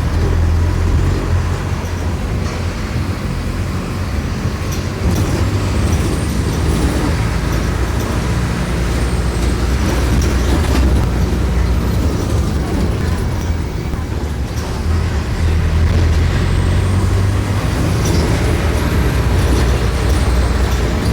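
Mercedes-Benz OF-1418 bus's OM-904LA four-cylinder turbodiesel running, its low drone swelling and easing several times as it pulls. A faint high whistle rises and falls twice.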